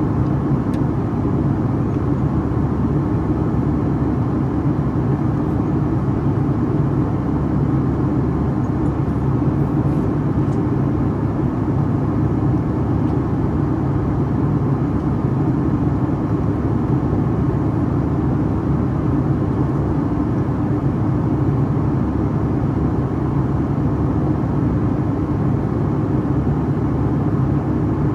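Steady cabin noise of a Boeing 757-300 in flight: jet engine drone and rushing airflow with a low, even hum, heard from a window seat near the wing.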